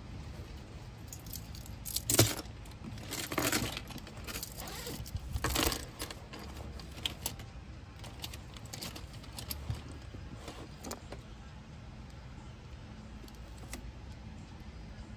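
Clear plastic packets of Muji gel pen refills crinkling as they are handled and laid out on a desk, with light clicks of pens and packets being set down. Three louder rustles come in the first six seconds, then only scattered light clicks.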